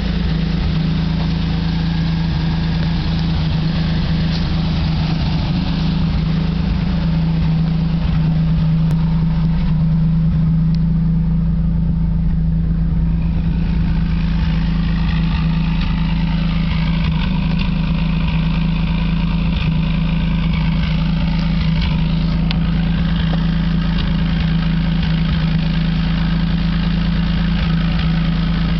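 1950 Chevrolet straight-six with dual exhaust idling steadily.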